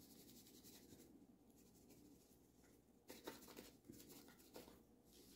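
Near silence with faint scratching, then a few soft taps and scrapes about three seconds in, from food preparation at a kitchen counter.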